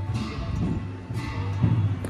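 Background music with a steady low bass line and a few plucked notes.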